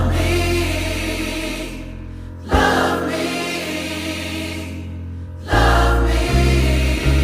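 Music with choir-like singing over sustained chords and heavy bass, with the bass turning into a pulsing beat about five and a half seconds in.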